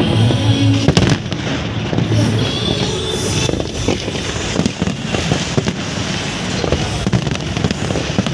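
Fireworks display: a dense, continuous run of bangs and crackling from bursting shells, with one especially sharp bang about a second in.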